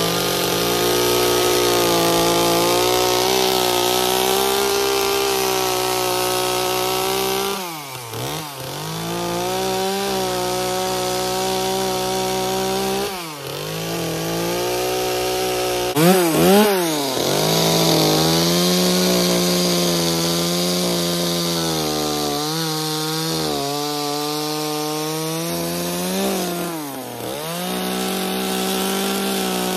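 Small gas two-stroke chainsaw running at high revs, cutting into a wood log. The revs drop and climb back several times as the throttle eases and the bar bites again.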